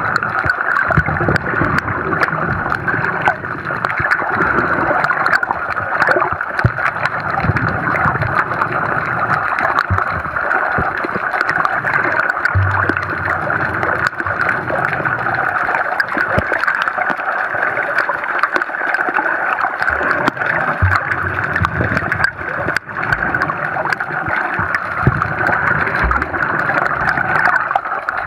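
Underwater sound picked up by a camera: a steady muffled rush of water with faint crackling clicks and occasional low thumps as the water moves against the housing.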